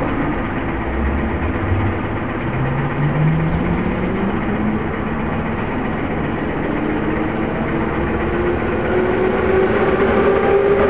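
Vagonmash 81-series metro train accelerating away from a station, heard from inside the car: the whine of its traction motors rises steadily in pitch as it picks up speed, over a steady running rumble.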